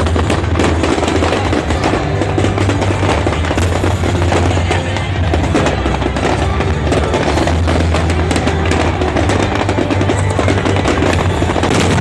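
Fireworks crackling and popping in rapid, dense succession over loud music with a steady deep bass.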